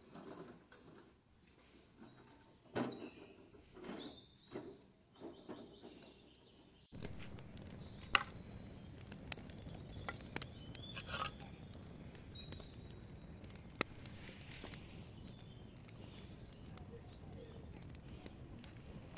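Wood fire burning under a pot, a steady hiss with sharp crackling pops, and birds chirping now and then. Before that, for the first seven seconds, scattered knocks and scrapes of wood being handled at the stove.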